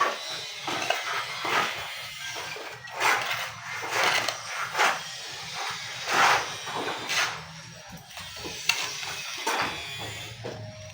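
A shovel scraping through cement mortar in repeated strokes, roughly one or two a second and unevenly spaced, as the mortar is mixed.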